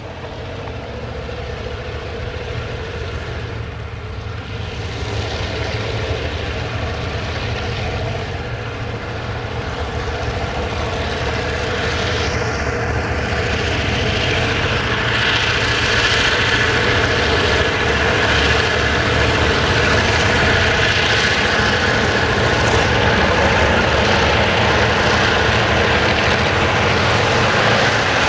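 Several CN EMD-built diesel road-switcher locomotives (GP9RM, GMD-1, GP38-2) working hard under throttle, their engines a deep steady drone that grows steadily louder as the train approaches.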